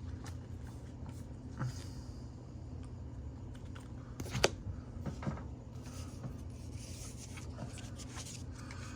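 Trading cards being handled and set down: light rustling with scattered soft clicks and taps, and one sharper click about four and a half seconds in, over a steady low hum.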